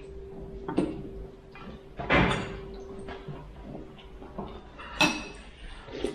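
A few knocks and clatters of dishes and utensils handled at the table, the loudest about two seconds in, with a faint steady tone under the first few seconds.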